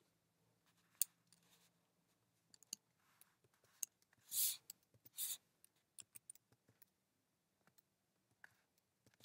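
Hands rummaging through packing material inside a cardboard shipping box: scattered light clicks and taps, with two short rustles of wrapping about halfway through.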